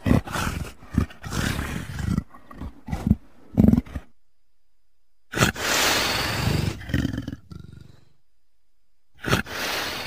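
Leopard calling: a run of short, harsh roaring calls over the first four seconds. After a pause comes one longer snarling roar of about two and a half seconds, and another call begins near the end.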